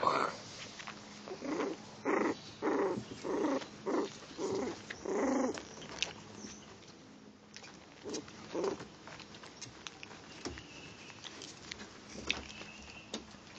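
Cheagle (Chihuahua–beagle mix) puppy play-growling: a quick run of short growls over the first six seconds, then only a few fainter ones.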